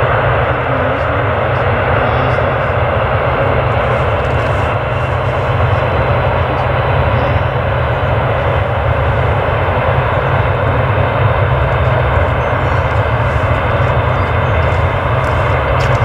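Jet airliner engines heard as a loud, steady rushing noise that holds even throughout.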